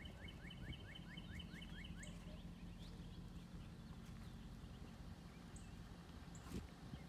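A bird calling a quick series of short falling notes, about four a second, which stops about two seconds in, over a faint steady low rumble. A soft knock comes near the end.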